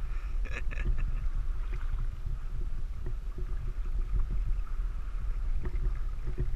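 Low steady rumble of wind and water against the microphone on open water, with a quick cluster of short sharp sounds about half a second in.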